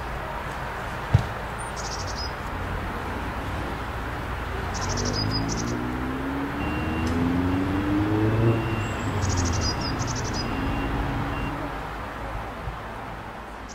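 Meadow insects chirping in short pulsed bursts over a steady outdoor rush. Around the middle, a distant vehicle engine rises in pitch as it speeds up.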